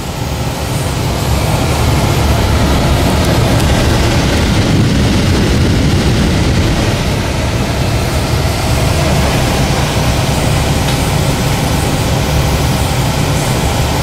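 Air-conditioning air handler running: a steady rush of moving air over a low hum.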